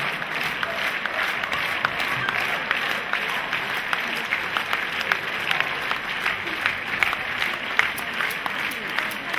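Crowd of spectators applauding, many sharp individual claps over a steady wash of clapping.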